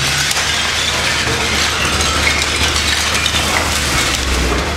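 Excavator bucket tearing into a brick wall, with bricks and rubble falling in a dense clatter of knocks and clinks. The excavator's engine runs steadily underneath.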